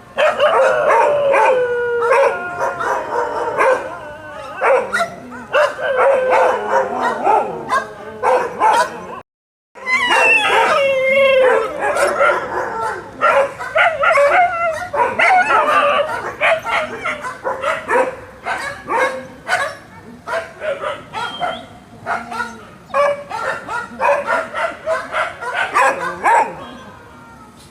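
Dogs barking aggressively, with drawn-out, wavering cries early on and rapid runs of short, sharp barks later. The sound cuts out completely for about half a second, about a third of the way through.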